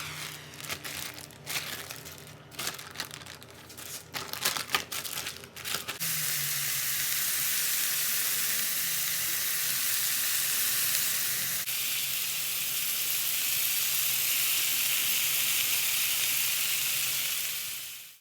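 Food sizzling steadily in a hot pan, starting suddenly about six seconds in and fading out at the end. Scattered clicks and knocks come before it.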